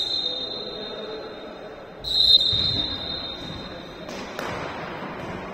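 Referee's whistle blown twice: a short blast right at the start, then a longer, louder blast of about two seconds beginning about two seconds in, over the murmur of the hall.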